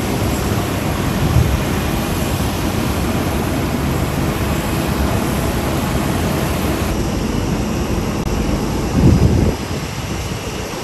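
Airbus A350-941 jet engines running loud and steady, a broad rushing jet roar. The hiss thins a little about seven seconds in, and there is a brief low surge about nine seconds in.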